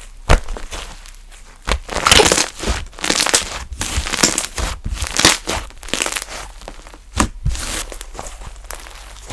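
Hands kneading and stretching funfetti slime, making crinkly, crackling squishes with sharp pops. The crackling is densest from about two to seven seconds in.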